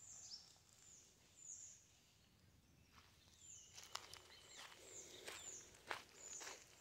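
Faint footsteps crunching on dry leaf litter along a dirt path, starting about halfway through, while a bird repeats a short, high, falling call.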